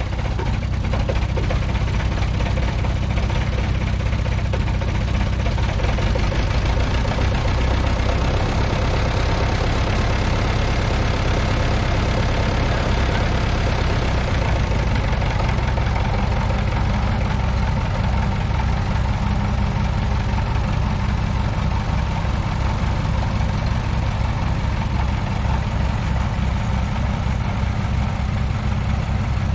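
1969 Minneapolis-Moline U302 diesel tractor engine running steadily as the tractor drives off down the lane.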